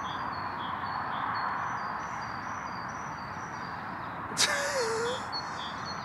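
Outdoor ambience with small birds chirping, short high notes repeated every half second or so. About four and a half seconds in there is a sharp knock, then a brief low hum.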